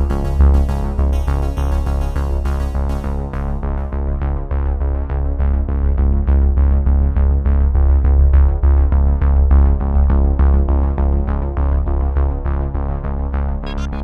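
Background electronic music: synthesizer chords over a steady bass beat.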